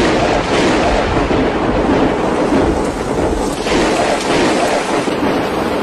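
Heavy storm downpour pelting down, a loud, dense, steady rushing patter.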